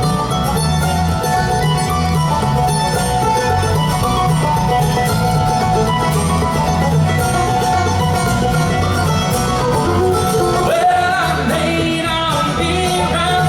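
Bluegrass band playing, with banjo and guitar picking over a steady bass line; a sliding melody line comes in about eleven seconds in.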